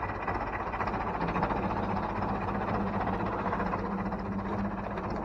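Ursus C-355/C-360 tractor's four-cylinder diesel engine running steadily at low revs, heard close up.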